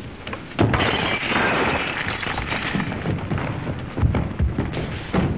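Slapstick crashing and clattering as objects are thrown and knocked about a room: a sudden loud crash about half a second in, then a dense clatter that breaks into a run of separate knocks and thuds.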